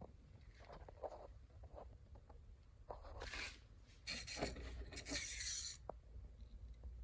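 Faint rustling and scraping handling noises, with a few short louder swishes in the second half.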